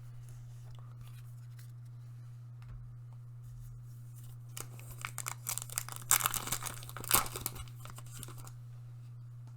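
A Pokémon booster pack's foil wrapper being torn open and crinkled, in a crackling burst of about four seconds that starts about halfway through, over a steady low hum.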